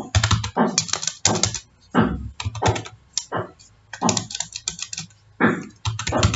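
Computer keyboard being typed on: quick, irregular runs of loud key clacks, as text is typed and deleted.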